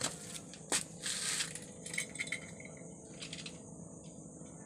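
A bicycle being handled: a few scattered light clicks and rattles with a brief rustle about a second in.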